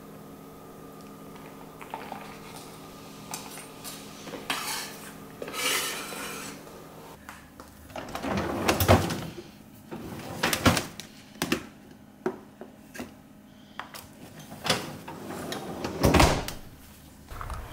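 Kitchen work: a steady hum for the first several seconds, then a series of knocks, clinks and clatters of dishes, pans and utensils, the loudest a little past the middle and again near the end.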